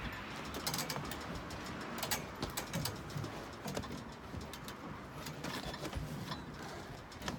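Scattered light knocks, taps and clicks from someone climbing and moving about on a small boat, with a bird calling in the background.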